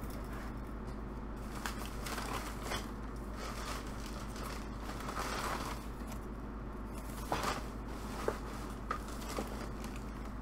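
Faint rummaging through a box and a cluttered table: scattered light rustles, clicks and knocks of things being moved, over a steady low hum.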